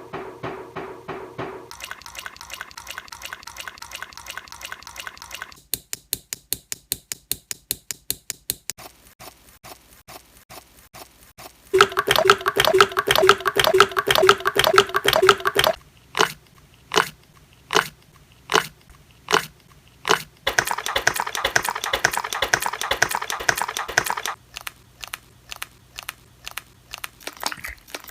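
Wet mouth noises from a Shiba Inu dog, with smacking and clicking. They come in stretches: a fast run of clicks, louder dense bouts, and single clicks about once a second in between.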